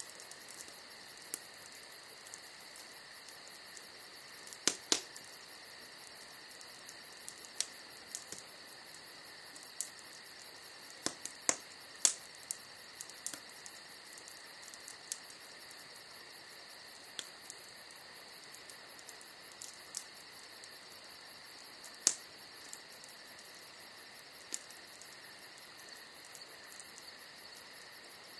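Wood fire crackling with sharp pops scattered irregularly, the loudest about five, twelve and twenty-two seconds in, over a steady high-pitched trill in the background.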